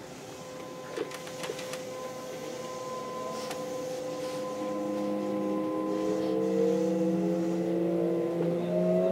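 Electric train's traction motors and inverter whining as the train accelerates, several tones rising in pitch together and growing louder from about halfway through. A few light clicks about a second in.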